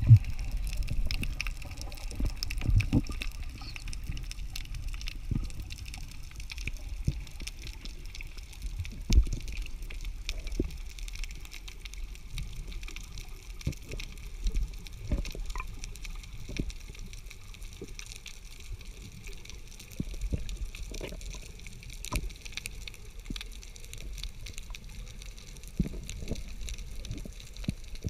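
Underwater ambience heard through a camera's waterproof housing: a steady low rumble of water movement with many scattered clicks and crackles, and a few louder knocks.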